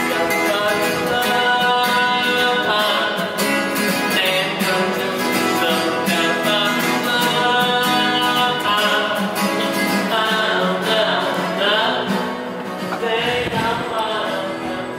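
Live guitar music with a singing voice, strummed and plucked, growing fainter near the end.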